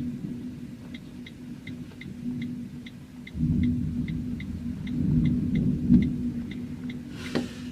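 Gusty storm wind buffeting the microphone: a low rumble that sets in suddenly about three and a half seconds in and swells, over a steady hum and a fast, even ticking about three times a second. A short crackle comes near the end.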